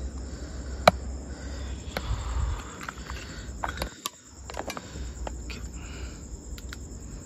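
Crickets chirping steadily, with sharp clicks and crunches from footsteps over broken roof sheets and debris, the loudest a single crack about a second in.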